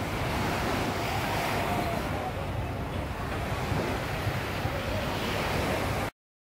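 Steady outdoor noise of wind and surf, with wind rumbling on the microphone, cutting off suddenly near the end.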